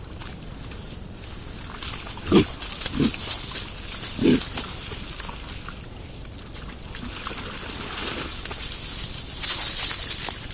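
Wild boar grunting: three short grunts a little past two, three and four seconds in, over the rustle of leaf litter and mud as the sounder roots and wallows. The rustling grows louder near the end.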